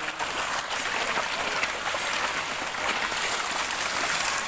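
Water splashing and churning as a dense crowd of koi and other fish thrashes at the surface of a pond, a steady crackling spatter of many small splashes.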